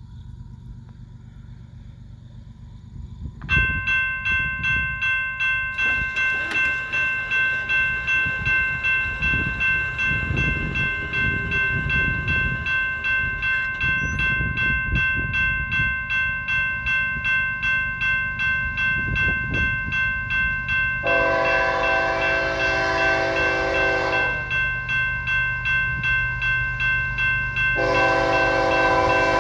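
A railroad crossing bell starts ringing about three seconds in, with even strokes roughly one and a half times a second. Near the end, the approaching BNSF GE ES44AC locomotive sounds its Nathan K5HL five-chime horn in two long blasts, the second still going at the end, over the low rumble of the oncoming train.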